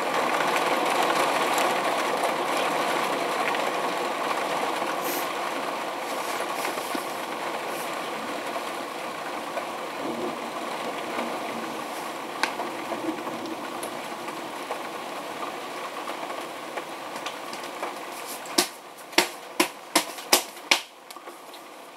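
Rolling thunder from a severe thunderstorm: a long rumble that swells in the first second and then slowly dies away. Near the end comes a quick run of about six sharp clicks.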